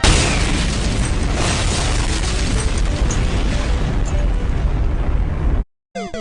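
Loud explosion-like rumbling noise that starts suddenly and cuts off abruptly after about five and a half seconds. Near the end, music with stepping tones begins.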